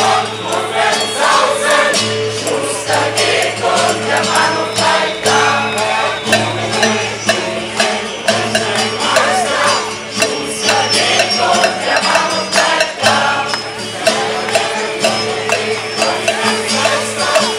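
A choir singing a German protest song in unison, accompanied by steady held chord notes and a regular beat of jingling percussion.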